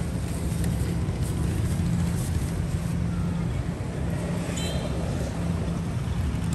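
A motor engine running steadily with a low, even hum, over general street noise.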